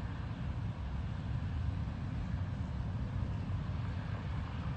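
Outdoor night ambience during a lightning storm: a steady low rumble with a fainter hiss over it. No distinct thunderclap stands out.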